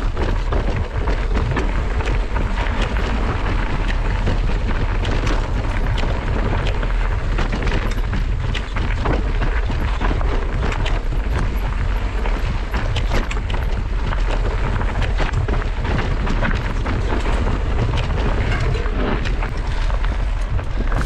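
Wind buffeting the action-camera microphone while a mountain bike rides over a rocky dirt trail, with frequent small clicks and rattles from the bike and stones throughout.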